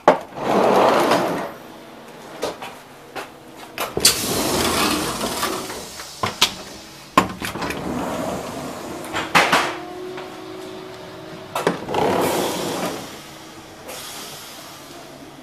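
Interior sliding doors between train carriages opening and closing: three longer rushes of door movement, with sharp clicks and knocks in between.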